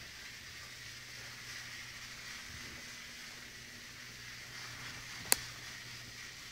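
A sleeping woman's faint snoring breath about two and a half seconds in, over a steady low hum and hiss. A single sharp click about five seconds in is the loudest sound.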